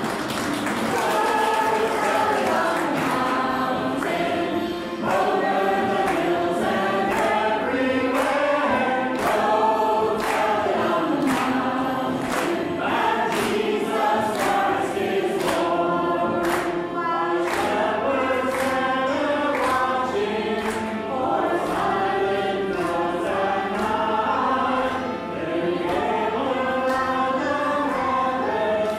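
Choir singing a Christmas carol, with sharp accents falling on a steady beat.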